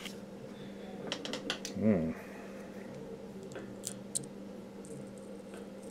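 A metal pick tapping and scraping on a stereo receiver's sheet-metal chassis: a quick run of light clicks about a second in and two more a little before halfway, with a short hum of a man's voice about two seconds in. A steady low hum sits underneath.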